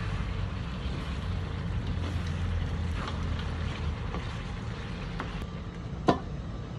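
A wooden spatula stirs chicken pieces in a large aluminium wok, with a few light scrapes over a steady low rumble. About six seconds in, the aluminium lid is set on the wok with a single sharp metallic clank.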